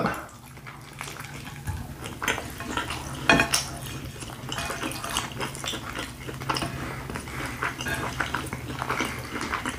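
Close-miked eating: scattered clicks and soft smacks of chewing and of fingers handling corn on the cob and a fajita tortilla on plates, over a faint steady low hum.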